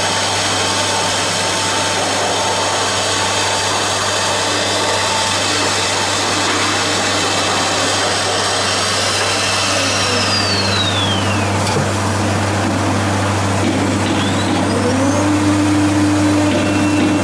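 CNC router spindle milling a solid-wood door panel, running steadily under a loud machine and dust-extractor noise with a low hum. About ten seconds in, a spindle's whine falls away. A few seconds later another spindle spins up with a rising whine and settles to a steady tone as the horizontal lock-hole head comes into use.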